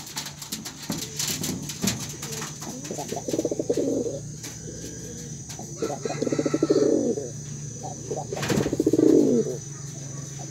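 Male domestic pigeon cooing to call a hen: deep rolling coos repeated every two to three seconds, with a softer one near the start.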